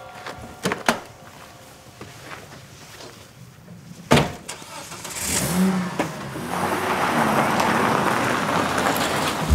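A car door clicks open and is shut with a loud thunk about four seconds in; then the engine starts and the car pulls away, its engine and tyre noise growing louder.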